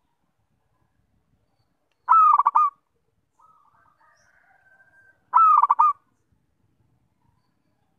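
Zebra dove cooing: two short phrases about three seconds apart, each a falling first note run into a quick stutter of staccato coos.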